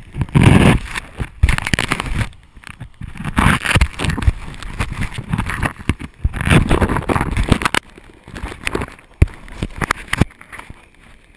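Fabric rustling and rubbing right against the camera, in loud irregular bursts with sharp clicks and knocks of handling noise.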